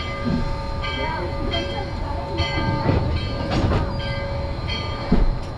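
Steam locomotive's bell ringing in slow, even strokes, roughly one every three-quarters of a second, over the low rumble of the standing locomotive. A heavy low thud comes about five seconds in.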